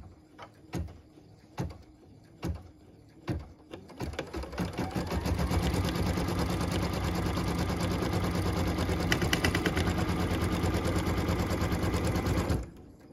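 Embroidery machine stitching a tack-down line: a few slow single stitches about a second apart, then about four seconds in it speeds up to steady rapid stitching that stops near the end.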